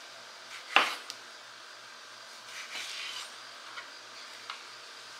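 Kitchen knife trimming tomatoes on a cutting board: one sharp knock of the blade on the board just under a second in, a stretch of soft cutting, and a few light taps.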